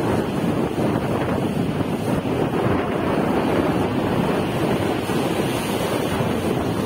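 Rough sea surf breaking and washing up the sand in a steady roar of foam, with wind buffeting the microphone.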